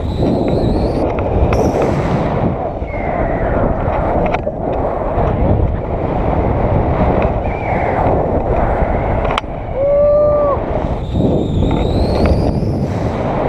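Loud, steady wind rushing over the microphone of a camera on a selfie stick during a tandem paraglider flight. A few short high-pitched sounds sit on top, including a brief held tone about ten seconds in.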